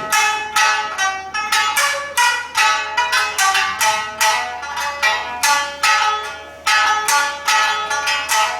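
Shamisen played solo: a run of sharply plucked notes, about two or three a second, as the instrumental opening of a Japanese folk song.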